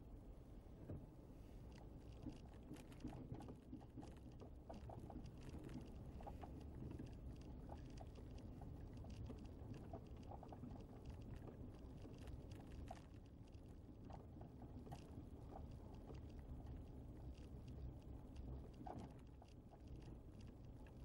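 Faint low rumble of a car rolling slowly over a worn, rough lane, with many small scattered clicks and crackles from the tyres.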